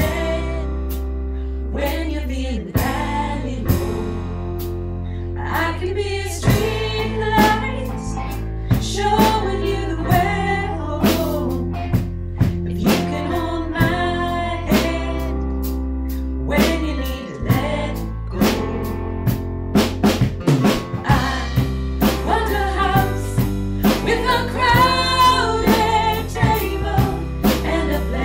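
A song with a singing voice over a drum kit and a steady bass line, the drums keeping a regular beat.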